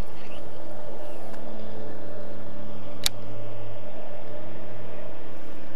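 Steady, low-pitched engine hum holding at one level, with a single sharp click about three seconds in.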